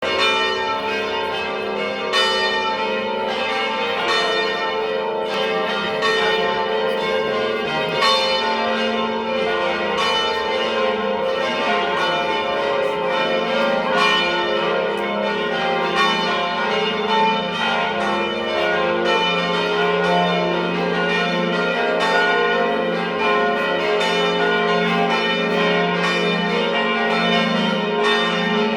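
Several church bells ringing together in a continuous peal, strike after strike overlapping with no pause.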